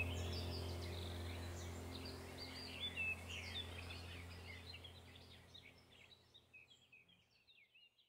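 Small birds chirping and singing over a low steady hum, the whole slowly fading out to silence near the end.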